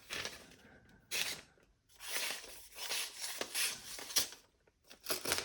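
Sharpening stone on a TSProf Kadet guided sharpener drawn along a pocket knife's edge: several rasping strokes, each about half a second long, with short pauses between.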